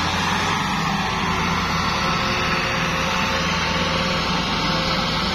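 Two diesel tractors, a Massey Ferguson 385 and a Fiat 640 chained in tandem, running steadily under heavy load as they pull a stuck, sugarcane-laden trolley.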